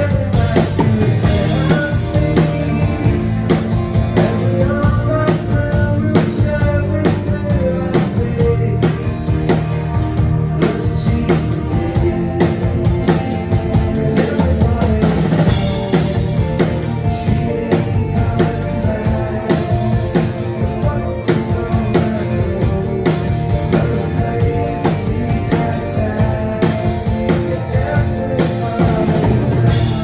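Live rock band playing a song: a drum kit keeps a steady beat under electric and acoustic guitars, bass and keyboards.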